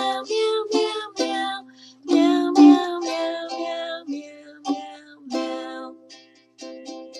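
Ukulele strumming chords as a children's song's accompaniment, the strums growing sparser near the end.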